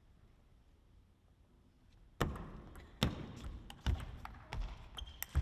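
Faint room tone, then from about two seconds in a table tennis ball clicking sharply off rackets and the table in a rally, mixed with low thuds.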